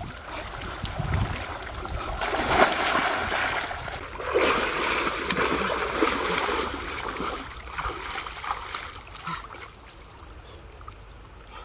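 River water splashing and sloshing around a person wading through shallow water. It is loudest in the middle and dies down to a softer lapping near the end.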